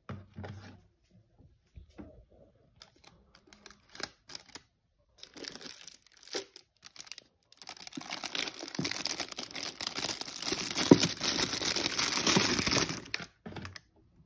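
Hands rummaging through a drawer of packaged office supplies: scattered knocks and rustles of boxes and plastic packaging, then a long stretch of dense plastic rustling from about halfway in until shortly before the end.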